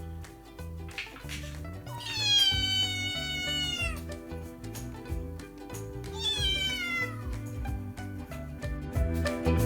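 Scottish Fold kitten meowing twice: a long meow of about two seconds that drops in pitch at the end, then a shorter falling meow. Background music plays throughout.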